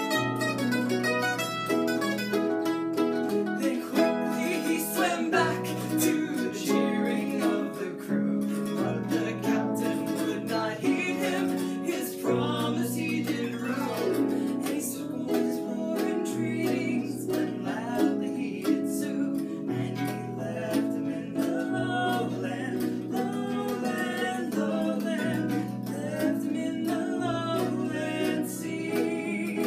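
Pedal harp and mandolin playing a traditional folk ballad together, the harp plucking dense ringing notes and the mandolin picking. Voices are singing over the instruments through much of it.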